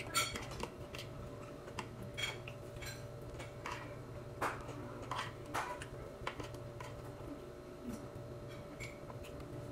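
A metal spoon clinking and scraping against a bowl during eating: scattered short clicks at irregular intervals, over a steady low hum.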